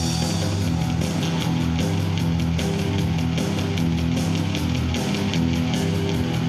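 Stratocaster-style electric guitar playing an instrumental melody over accompaniment with a steady beat and low bass notes.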